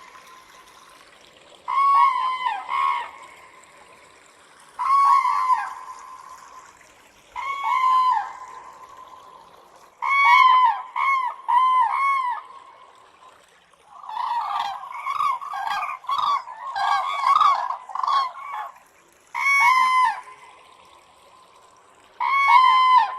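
Cranes calling: short calls of two or three arched notes, repeated every two to three seconds, with a denser run of overlapping calls from several birds in the middle.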